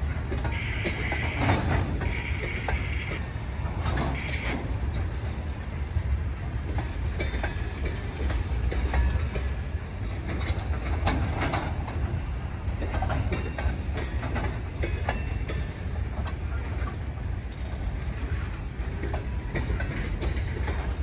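Freight train of tank cars rolling past in a steady low rumble, with the wheels clicking irregularly over rail joints.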